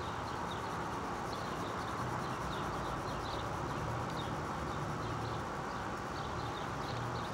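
Outdoor evening ambience: short, high chirps repeating irregularly over a steady low hiss and hum.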